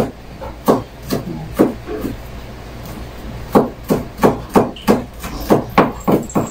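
Kitchen knife chopping red onion finely on a cutting board: sharp knocks of the blade on the board. A few spaced strikes, a short pause, then an even run of about three strikes a second.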